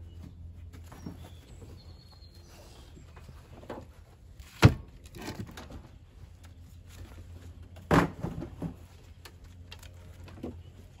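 Split oak firewood knocking as pieces are set onto a stack in a steel-caged IBC tote: a sharp knock about five seconds in, another about eight seconds in followed by a few lighter clunks.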